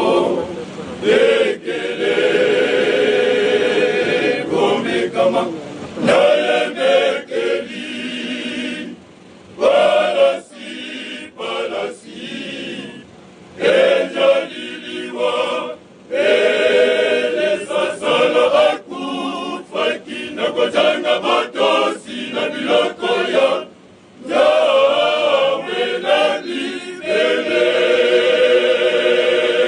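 Male choir singing under a conductor, in phrases broken by a few short pauses.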